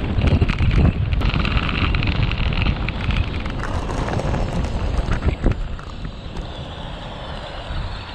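Wind buffeting the microphone over the hum of road-bike tyres on asphalt while the bike descends, with a couple of sharp knocks. The noise eases over the last few seconds as the bike slows.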